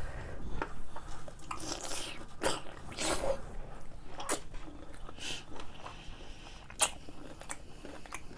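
Pickle being bitten and chewed: wet crunching bites and chewing, with a few sharper crunches here and there.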